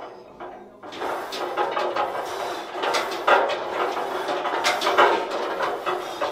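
Smith machine in use for squats: irregular metal clanks, knocks and rattles of the bar and weight plates, starting about a second in.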